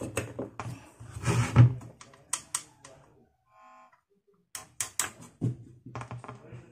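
Scattered clicks and knocks from hands handling the wires and potentiometer of a homemade single-transistor microphone preamp circuit as it is connected up for a test. A short buzzing tone sounds about three and a half seconds in.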